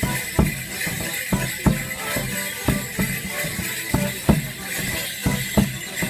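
Live folk band playing a Border Morris dance tune, with a strong, steady beat of about two and a half strokes a second.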